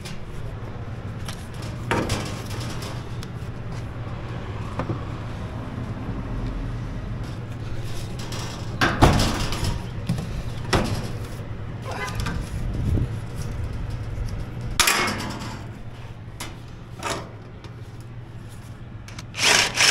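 Metal stove shell and aluminum bracket parts being handled and fitted by hand: scattered knocks, clanks and scraping rubs over a steady low hum. Right at the end a cordless drill starts driving a screw in short bursts.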